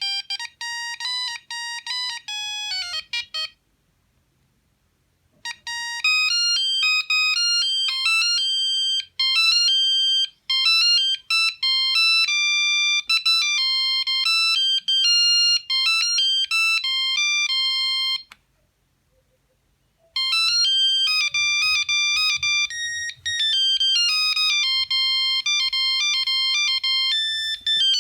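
Sony CMD-CD5 mobile phone playing ringtones one after another: the tail of one electronic melody, a pause of about two seconds, a second melody of quick stepping notes lasting about thirteen seconds, another short pause, then a third melody starting.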